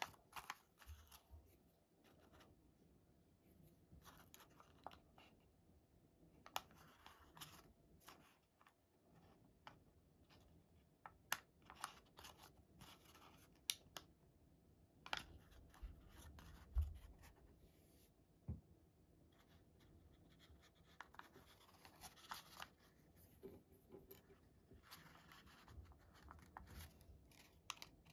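Faint rustling and crinkling of origami paper as it is folded and creased by hand, with scattered short, sharp snaps and taps.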